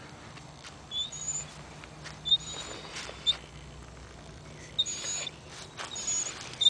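Short, high-pitched animal squeaks, repeated several times at uneven intervals, with brief breathy rustles between them.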